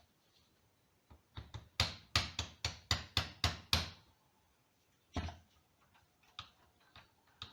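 A quick run of about nine sharp metal taps in two seconds, then a few single knocks, from hand tools working on the power steering pump's parts during reassembly.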